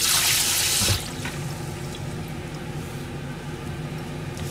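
Kitchen tap running into a stainless steel sink as hands are rinsed under it, shut off about a second in. A steady low hum carries on after it.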